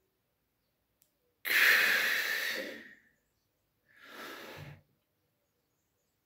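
A man's deep breaths close to the microphone during a deep-breathing exercise: one loud breath that starts suddenly and fades over about a second and a half, then a shorter, quieter breath about a second later.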